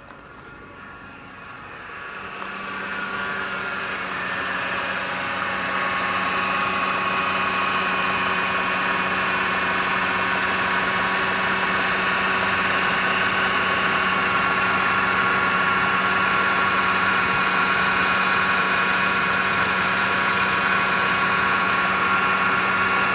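Mercedes-Benz C 200 (W204) engine running with a steady high-pitched whine over the engine note, growing louder over the first few seconds and then holding steady. The whine comes from a failing A/C compressor; replacing the compressor cured it.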